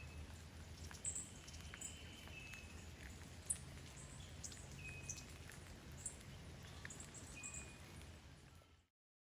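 Faint outdoor nature ambience: scattered short bird chirps and brief whistled calls over a low steady rumble, fading out to silence near the end.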